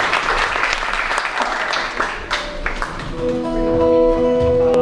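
Audience applause that dies away over the first couple of seconds. About three seconds in, the band starts the tune with several notes held steady.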